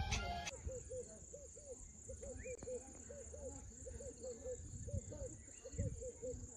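Outdoor nature ambience after background music cuts off about half a second in: a steady high-pitched insect drone, an animal's short low call repeated several times a second in runs, and a single rising bird chirp about two seconds in, over a low rumble.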